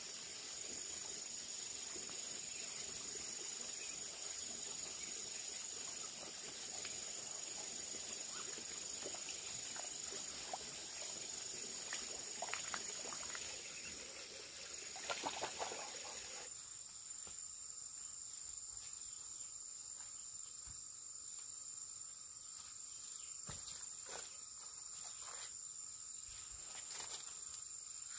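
Insects shrilling steadily: a fast, high pulsing chirp over a constant high whine, the pulsing stopping about 16 seconds in while a steadier insect drone carries on. A few scattered clicks and rustles sound over it.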